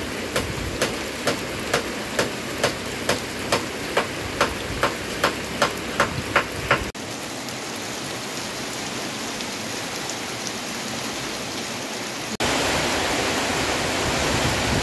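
Steady rain with water dripping from a roof's edge, sharp drops landing about twice a second and growing louder over the first half. The drips then stop and only the even hiss of rain remains, which turns louder and brighter near the end as heavier rain fills the sound.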